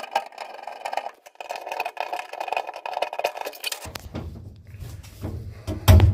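A screwdriver turning the worm screw of a hose clamp, a fast scratchy clicking, for about four seconds. Then a low rumble with a few knocks, the loudest near the end.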